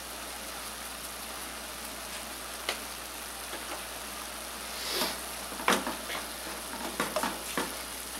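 Ground beef sizzling steadily as it fries in an aluminium pot. From the middle on come several sharp scrapes and knocks as a wooden spoon stirs the meat against the pot.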